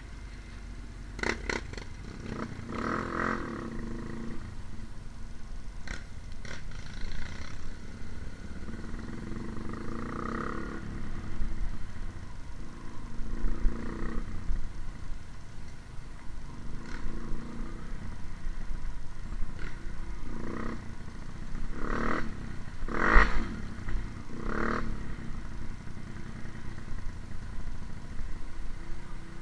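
Trail motorcycle engine running, with a low steady rumble and several short revs, the loudest three close together near the end.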